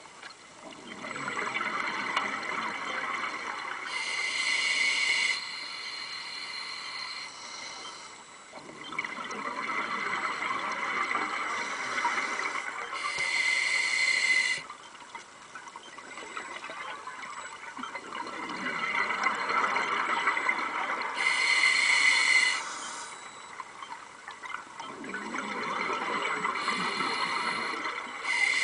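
Scuba diver breathing through a regulator, heard underwater: four slow breath cycles about every eight seconds, each a longer rushing, bubbling stretch followed by a shorter, brighter hiss.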